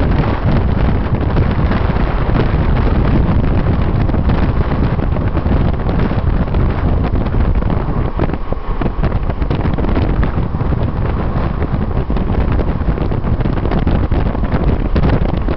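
Wind rushing over the microphone of a camera in a moving car, over the car's steady road rumble.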